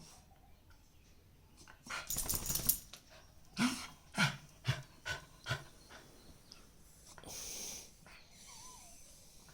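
A dog making weird sounds: a rough, noisy burst about two seconds in, then five short, low calls about half a second apart, each dropping in pitch, and a breathy rush of air near the end.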